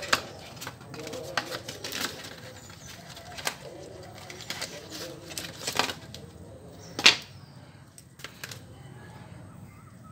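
Cardboard and plastic packaging handled by hand as a neckband headphone is pulled free of its cardboard insert tray: rustling and scattered clicks, with one sharp tap about seven seconds in.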